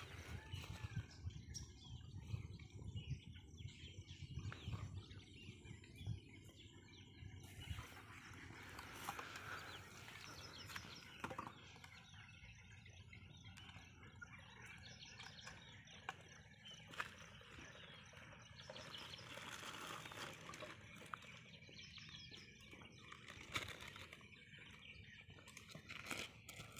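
Quiet lakeside ambience with faint bird chirps. There is a low rumble for the first seven seconds or so, and scattered small clicks and rustles from handling things.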